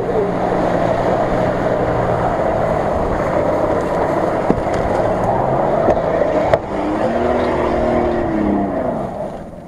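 Nissan Patrol SUV driving off-road, its engine working under load over a steady rushing noise. About seven seconds in, the engine revs up and then falls back over a second and a half.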